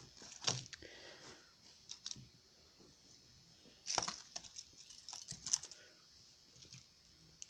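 Scattered light clicks and rustles of small objects being handled and set down, with a brief cluster about four seconds in.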